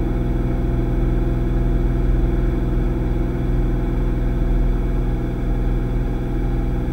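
Cirrus SR22T's turbocharged six-cylinder engine and four-blade propeller running steadily at reduced power on final approach: an even drone with a stack of steady tones.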